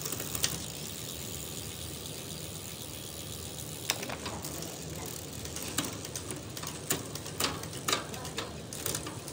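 Bicycle drivetrain running with the rear wheel spinning: the chain whirs over the cassette and through the newly installed Micronew rear derailleur, with a string of sharp clicks in the second half as the gears are tried.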